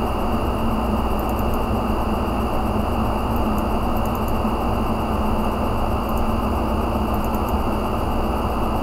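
Steady machine hum and hiss, with a few faint mouse clicks in quick pairs and threes as folders are double-clicked open.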